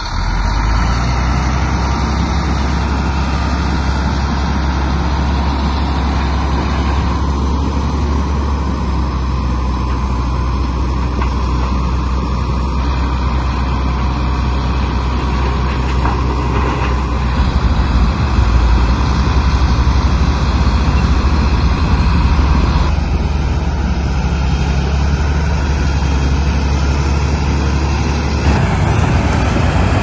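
Bulldozer's diesel engine running at a steady pitch, a loud low drone.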